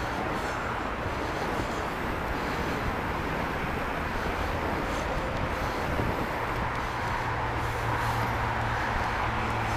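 Fat bike riding over a packed snow trail: a steady rolling rush of the wide tyres on snow, mixed with wind on the microphone.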